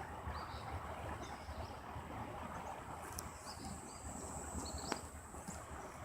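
Outdoor morning ambience: short, high bird chirps every second or so over a steady low rumble, with a single sharp click about five seconds in.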